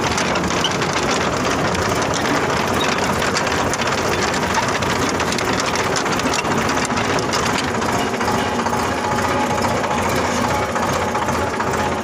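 An engine running steadily under load with a fast, even mechanical rattle.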